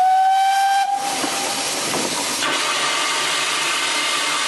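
A steam locomotive whistle gives one short blast of about a second, then steady hissing of escaping steam that grows louder about two and a half seconds in, with a low hum beneath.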